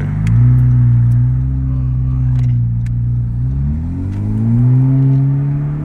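2018 Honda Civic Hatchback Sport's 1.5-litre turbocharged four-cylinder engine accelerating, heard from inside the cabin. Its revs rise and hold steady, dip about three and a half seconds in, then climb and hold again.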